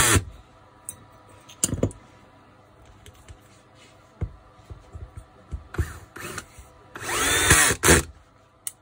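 Makita cordless drill-driver driving screws into an angle grinder's gear head. The motor whines up in pitch and winds down in short runs: one right at the start and a longer one about seven seconds in, with small clicks of handling in between.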